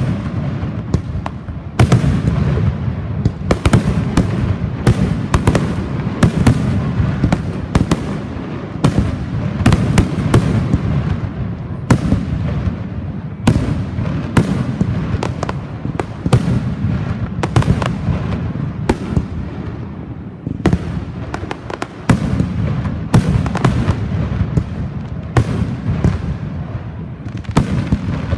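Fireworks display: a rapid, continuous string of shell bursts and bangs, many overlapping, over a steady rumble and crackle.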